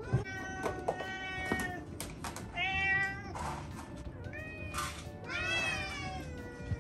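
House cats meowing, about four long drawn-out meows one after another, partly overlapping, the last one sliding down in pitch, with a few short hissy noises between them.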